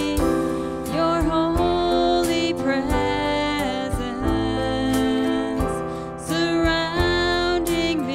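Live worship band playing a song: a woman sings the lead line over keyboard chords, acoustic guitar, electric bass and a drum kit keeping a steady beat.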